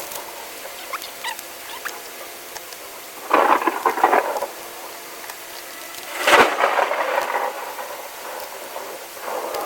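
Acrylic watch crystal being rubbed and polished, in three scratchy, rasping bursts of about a second each with faint squeaks and clicks between.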